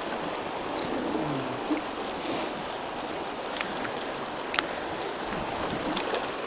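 Shallow rocky stream running over stones: a steady rush of water, with a few faint ticks.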